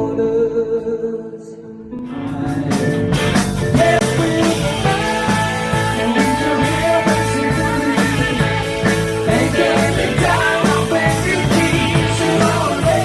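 Rock band music with singing: a quieter held passage gives way about two seconds in to the full band, with drums coming in.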